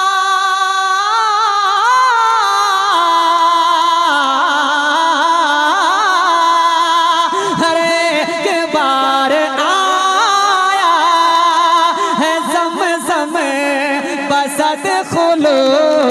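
A man singing a naat into a microphone, drawing out a long melismatic line of held, wavering notes that bend up and down.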